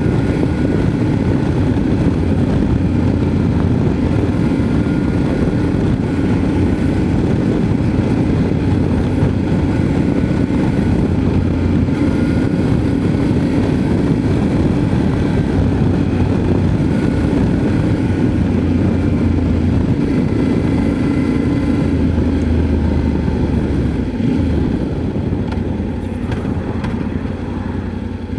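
Yamaha Ténéré 700's 689 cc parallel-twin engine running steadily while riding, easing off a little near the end.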